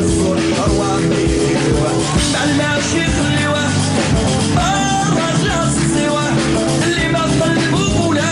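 Live band music with a male lead singer, his voice sliding in pitch over a steady bass line and an even beat.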